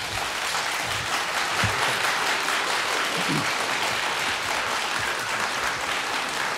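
Audience applauding, a steady round of clapping that starts as the speech ends.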